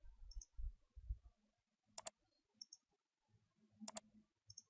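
Computer mouse clicks: two clicks, each a quick press-and-release pair, about two seconds apart. There are faint low thumps in the first second.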